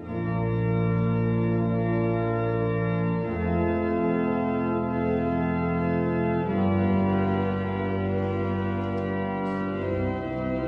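Church organ playing slow, sustained chords, the chord changing about every three seconds.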